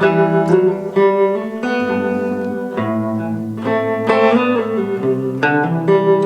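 Instrumental passage of a song, led by strummed and picked guitar chords that change about every second, with no singing.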